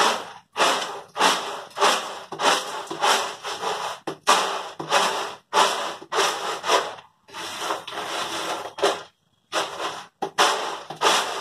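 Roasted peanuts being winnowed on a flat tray: rapid tossing and shaking strokes, about two a second, each a rattling, rustling scrape of nuts and loose skins across the tray, with one longer unbroken shake past the middle.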